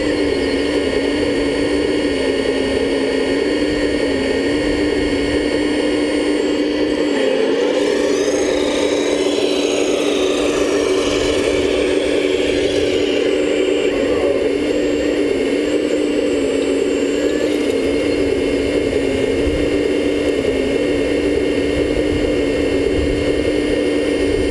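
Steady electric whine of a 1/14-scale radio-controlled model vehicle's motor running. Between about 8 and 13 seconds in, a second, higher whine rises and then falls.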